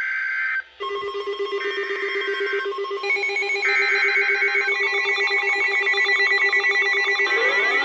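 NOAA Weather Radio alert signalling: three short screeching bursts of SAME digital header data about a second apart. Under them a weather radio receiver's electronic alarm starts about a second in as a steady buzzing tone and turns into a rapid pulsing beep about five seconds in, marking a new warning being broadcast. Near the end a rising siren-like wail begins.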